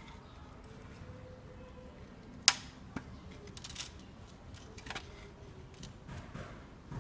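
Screwdriver working at the flange of a steel engine oil pan to break it free from its sealant: sharp metallic clicks and knocks, the loudest about two and a half seconds in, then a quick cluster of smaller clicks and a few scattered taps.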